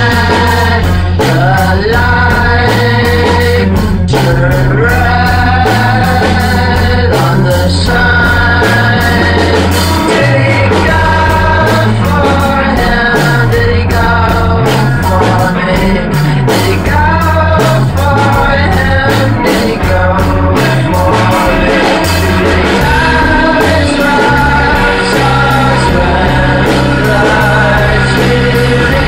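Rock band improvising: a bass guitar playing a moving line under steady drums, with a wavering sung vocal played through a rotating Leslie speaker cabinet. Recorded live in one room, so the vocals wash over the drums.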